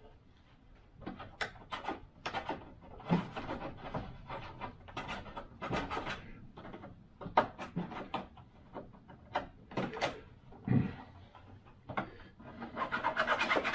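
Small 3D-printed plastic parts being handled and fitted on a workbench: irregular light clicks and taps, with a longer rustling scrape near the end.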